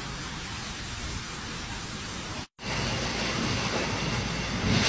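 Steady hiss of heavy typhoon rain and wind. It cuts out abruptly about two and a half seconds in, and after a split second of silence a louder stretch of rain begins with a low rumble from a vehicle on a flooded road, growing louder near the end.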